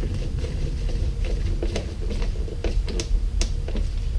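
A lawn mower's plastic air filter cover being fitted onto its housing: a run of short, sharp clicks and taps, about six, over a steady low hum.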